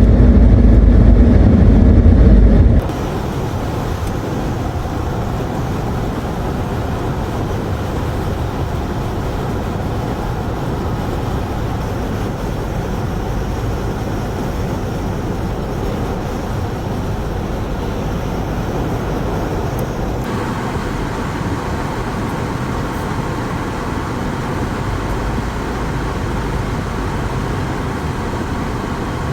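Steady vehicle and road noise, after a loud low rumble that cuts off suddenly about three seconds in.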